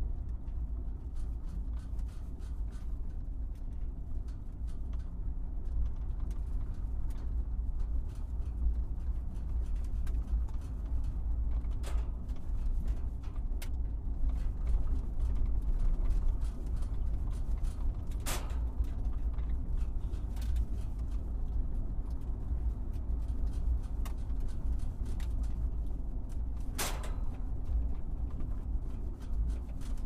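Truck jolting over bumps: a steady low rumble with scattered creaks and knocks, the sharpest about twelve, eighteen and twenty-seven seconds in.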